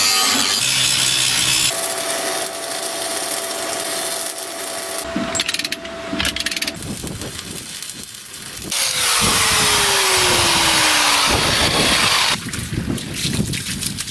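Angle grinder grinding and cutting steel, in several stretches that change abruptly. One stretch is a steady whine over the grinding noise; another, louder one has a whine that falls in pitch.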